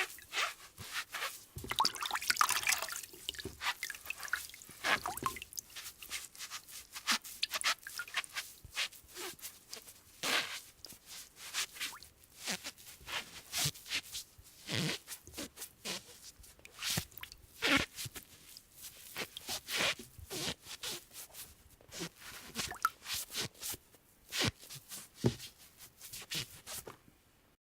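Water splashing and dripping in short, irregular splashes, several a second, the sound of something being washed by hand in water. The splashing is busiest about two seconds in and stops just before the end.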